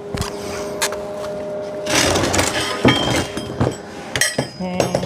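Metal clinking and tapping: several sharp knocks on metal, some ringing briefly, with a short noisy rasp about two seconds in.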